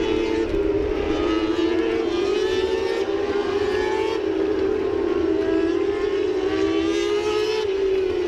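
Moto2 racing motorcycles at high revs: a loud, steady, high drone from several bikes lapping the circuit, its pitch wavering up and down as they change gear and speed.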